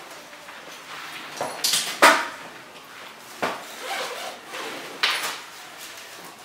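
Several sharp knocks and clacks at irregular spacing, the loudest about two seconds in, from tools and material being handled on a sewing-machine workbench.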